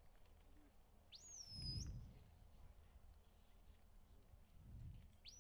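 Shepherd's whistle commands to the sheepdog. Each blast sweeps up quickly and then holds a steady high note for under a second. There is one about a second in and another near the end.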